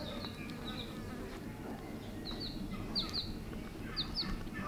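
A baby chick peeping: short, high-pitched chirps, mostly in quick pairs, several times over a low steady background noise.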